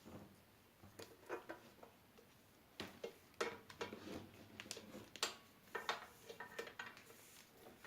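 An irregular run of light metallic clicks, taps and clinks, like small metal parts and hand tools being handled and set down on a workbench, most of them between about three and seven seconds in.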